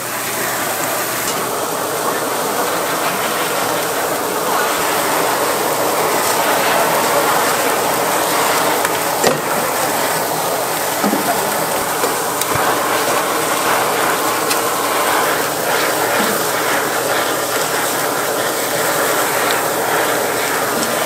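Hand-held butane blowtorch hissing steadily as its flame sears sauced meat skewers in a foil tray on a grill.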